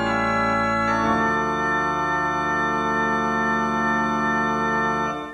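Background music of sustained organ chords; the chord changes about a second in and is held, then the music stops near the end with a short ring dying away.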